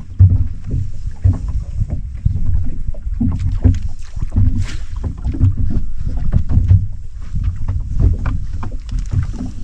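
Water slapping against the hull of a fishing boat, with wind on the microphone: an uneven low rumble broken by irregular knocks.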